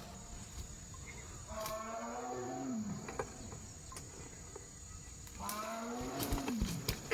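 An animal calling twice, each a long, low call of about a second and a half that holds its pitch and then falls away at the end.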